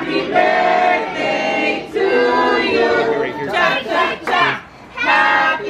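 A group of voices singing a birthday song together in long held notes, with a short pause between phrases near the end.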